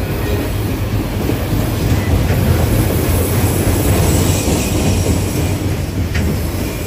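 Empty Union Pacific autorack freight cars rolling past, a steady rumble of steel wheels on the rails. There is a brief knock about six seconds in.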